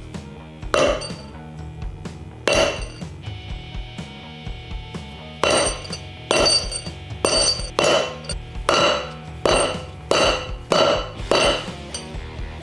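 Hammer blows ringing on steel as a new wheel bearing race is driven into the hub without a press: two separate strikes, then a steady run of about nine blows, roughly one every 0.7 s.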